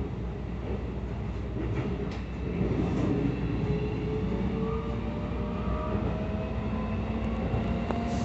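Keikyu 1000 series train with permanent-magnet synchronous traction motors running on the rails, a steady low rumble with a faint motor whine that slowly rises in pitch from about three seconds in as the train gathers speed.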